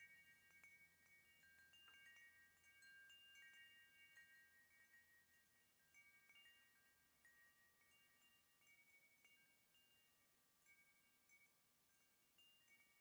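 Wind chimes ringing faintly, struck now and then so that several sustained pitches overlap with light high tinkles, growing quieter toward the end.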